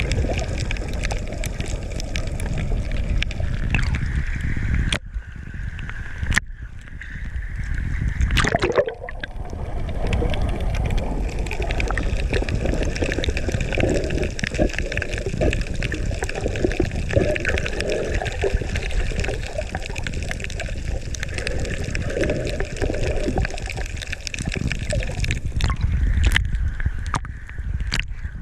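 Water sloshing and gurgling around a GoPro camera held underwater, with a few sharp clicks and a brief swooping rush about eight seconds in.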